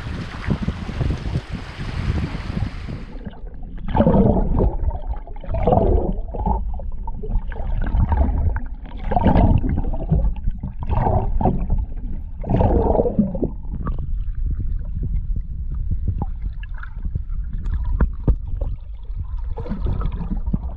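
Wind and sea noise on the microphone for about three seconds, then an abrupt switch to muffled water gurgling and sloshing that comes in repeated surges every second or two.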